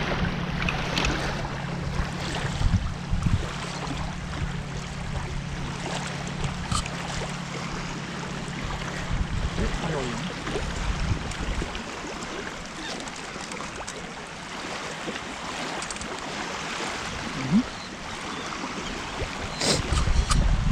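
Small wind-driven waves lapping and washing on a sandy lagoon shore, with wind on the microphone. A low steady hum underneath stops about halfway through.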